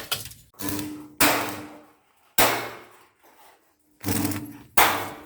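Hammering on a building site: three sharp strikes, about a second in, about two and a half seconds in and near the end, each ringing briefly as it dies away, with other knocking between them.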